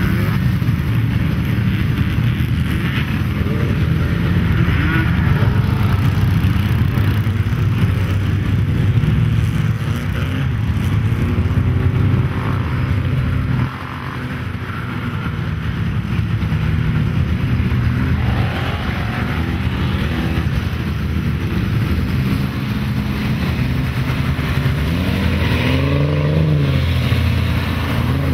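Engines of off-road mud vehicles running and revving as they plow through a mud pit, the pitch rising and falling. Partway through the sound cuts abruptly to a slightly quieter engine note, and near the end an engine revs up and back down.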